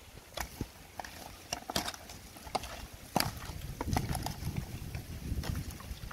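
Hands working seasoning into raw chicken pieces on a woven bamboo tray: irregular taps, soft slaps and rustles of meat and skin against the tray, with a low rumble underneath from about three seconds in.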